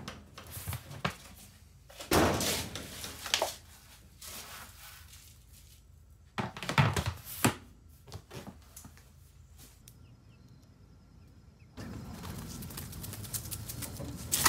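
Plastic storage bin being handled: the lid and a plastic cup knock and scrape against it, giving a few thunks in two clusters. Near the end a steady outdoor background noise takes over.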